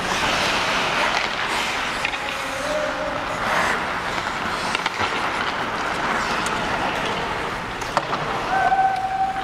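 Ice hockey skates scraping and carving across rink ice, with a few sharp clacks from sticks and puck.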